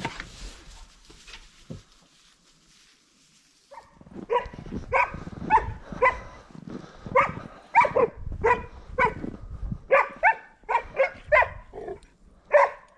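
A dog barking in short, quick, repeated barks, about two a second, starting about four seconds in.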